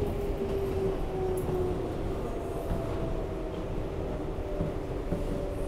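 An R188 subway car of the 7 train running, heard from inside the car: a steady rumble of the ride with a faint whine that slowly falls in pitch.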